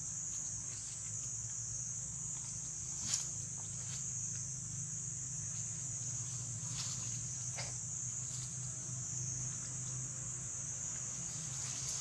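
Steady high-pitched drone of forest insects, cicadas or crickets, unchanging throughout, with a sharp click about three seconds in and a few faint rustles.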